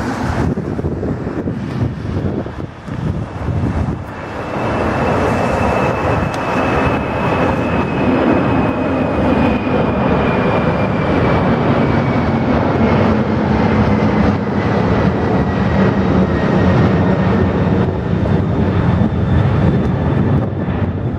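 Boeing 747-400 freighter's four jet engines at takeoff power as it climbs out overhead. The noise comes unevenly at first, then grows loud and steady about four seconds in, with a thin high whine that slowly falls in pitch.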